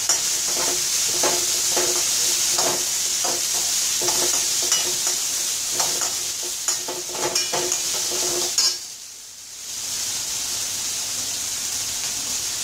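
Steel spoon stirring and scraping spiced pumpkin cubes in a stainless steel kadai, about two scrapes a second with a ringing metallic note, over steady sizzling of the frying. The stirring stops about nine seconds in, and the sizzling goes on.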